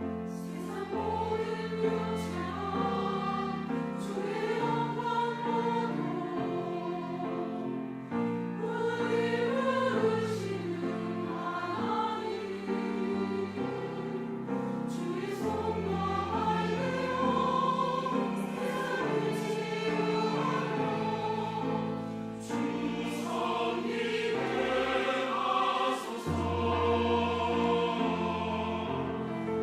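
Church choir singing a sacred anthem in sustained, many-voiced harmony, with a held bass line underneath.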